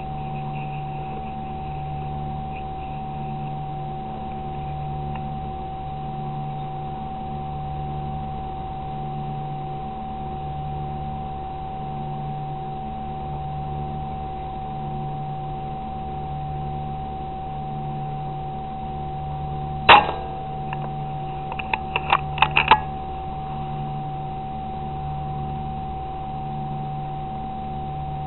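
A single sharp shot from an air rifle about twenty seconds in, followed a couple of seconds later by a quick run of clicks. Underneath runs a steady hum with a slow, pulsing low drone and a constant high whine.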